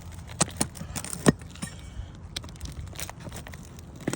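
Roof shingles being pried up and handled: irregular sharp clicks and knocks with scraping and crinkling, the loudest knock about a second in.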